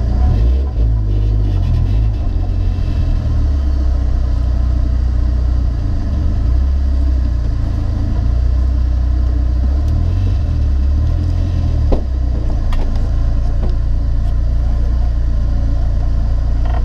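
BMW 318ti rally car's engine idling steadily, heard from inside the cabin as a low rumble, with a single sharp click about twelve seconds in.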